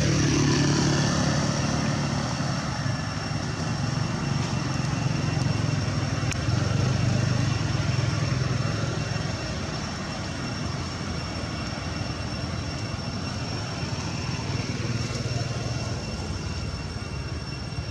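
Motorbike engine running close by, a steady low hum that is louder for the first nine seconds or so and then eases off. A thin, steady high tone carries on over it.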